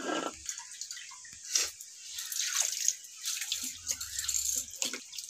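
Water dripping and splashing as a hand, wetted from a small steel water pot, is dabbed and rubbed across a flat board, giving scattered small wet pats and clicks.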